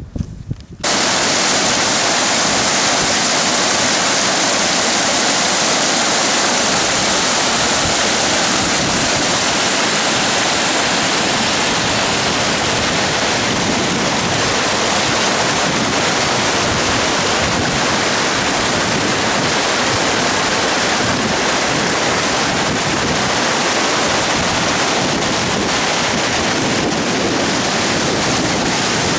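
Rushing mountain stream cascading close by: a loud, steady rush of water that starts suddenly about a second in.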